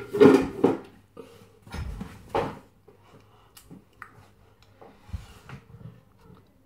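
Clattering and knocking of household items being shifted about on a kitchen shelf. It is loudest in the first second and again about two seconds in, then comes a scatter of lighter knocks and thumps.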